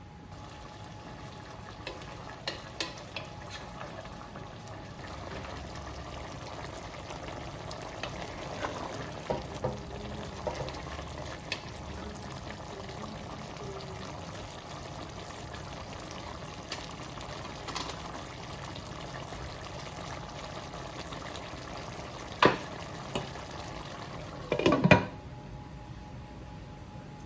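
Chicken curry with coconut cream simmering in the pot, a steady bubbling with scattered small pops. Two sharp knocks sound near the end.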